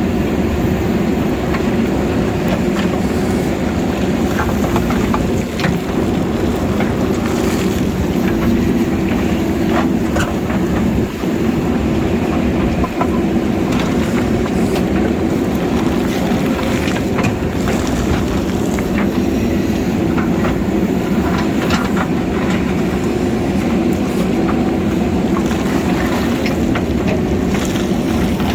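JCB backhoe's diesel engine running steadily under load, with scattered sharp clanks and knocks of the bucket working rock.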